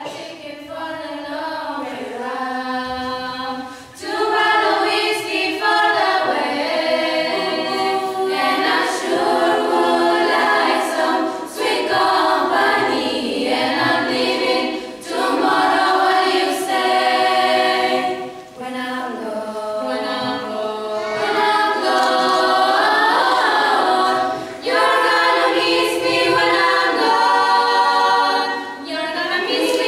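A girls' school choir singing a cappella in several voices, with no instruments, in phrases separated by brief breaks.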